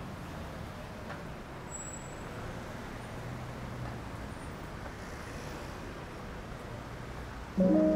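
Steady city street traffic noise, a low hum of passing road vehicles. Near the end, piano music suddenly comes in loudly with a held chord.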